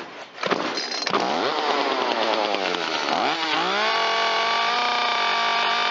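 Echo CS-355T two-stroke top-handle chainsaw, run without bar and chain, starting about half a second in, running with its speed sagging, then revving up about three and a half seconds in and holding a steady high pitch at full throttle. It now reaches full speed, the load from a dragging brake band on the clutch drum having been removed.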